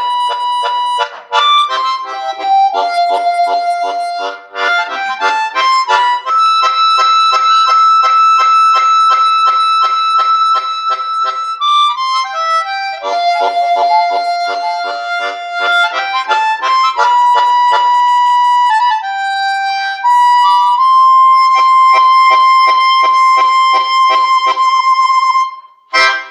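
Solo harmonica playing a slow melody of long held notes over a pulsing chord accompaniment. It ends on a long note with vibrato that breaks off just before the end.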